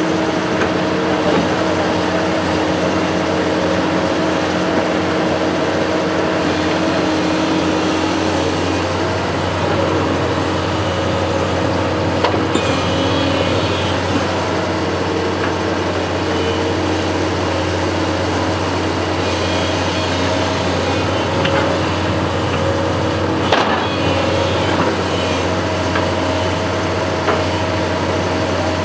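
Construction machine's engine running steadily under operation, with a couple of brief knocks partway through.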